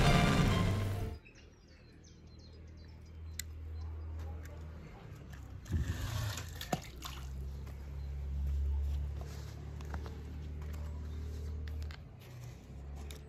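Music cuts off about a second in; then water sloshing and trickling, with scattered small clicks and a few knocks.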